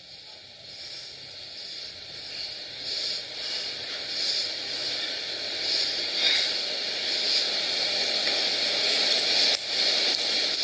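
A hissing rush of noise that swells steadily louder, a suspense build-up effect in the TV broadcast before the winner is revealed. It drops briefly about a second before the end.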